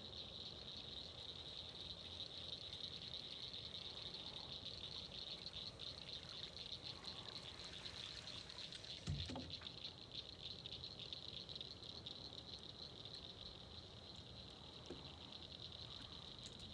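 Steady high-pitched buzzing trill of an evening insect chorus, such as crickets, continuous and even throughout. A single dull low thump about nine seconds in.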